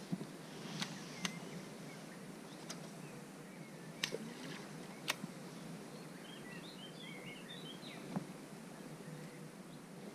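Faint outdoor pond-side ambience with a handful of scattered sharp clicks and a short flurry of bird chirps about seven seconds in.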